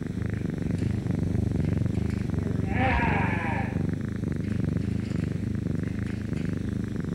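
Steady, rough purring close to the microphone, with one short meow-like cry about three seconds in.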